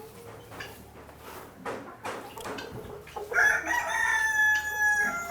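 A rooster crows once: one long, slightly falling call that starts a little past halfway and is still going at the end, after a few seconds of faint scattered noises.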